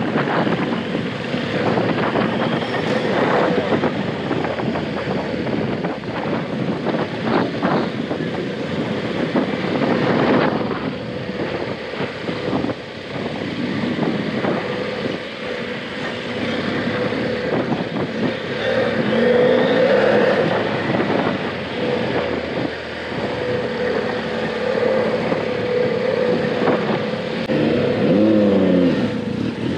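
BMW F800GS parallel-twin motorcycle engine running as the bike rides along a soft sandy track, heard from the rider's helmet, with the revs rising and falling a few times near the end.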